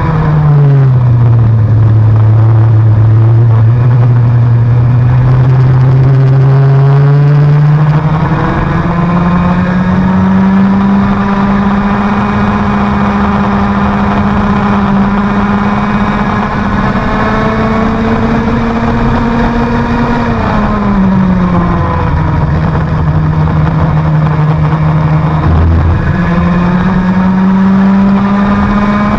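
IAME X30 two-stroke kart engine running hard on track. Its pitch drops sharply at the start as the kart slows for a corner and climbs back over several seconds. It holds high for a long stretch, drops again about twenty seconds in, and climbs once more near the end.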